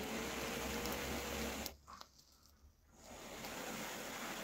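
A person blowing hard on freshly lit incense to get it smouldering: a long breathy hiss of about a second and a half, a pause of about a second, then a second blow.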